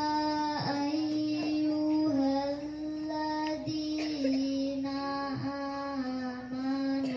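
A young girl chanting Qur'an recitation (tilawah) in long, held melodic notes that step up and down in pitch, with short breaks between phrases.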